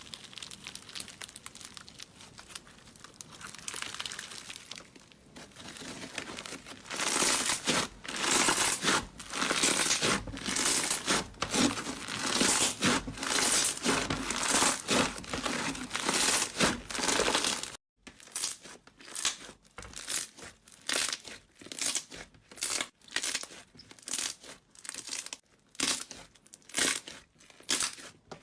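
Slime being squeezed, stretched and poked by hand in repeated strokes. It is quieter for the first few seconds and louder from about seven seconds in. After an abrupt cut, shorter presses come about twice a second.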